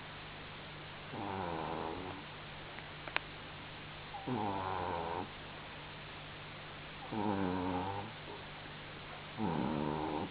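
Sleeping pet snoring: four pitched, rasping snores about a second long, roughly every three seconds. A single sharp click comes about three seconds in.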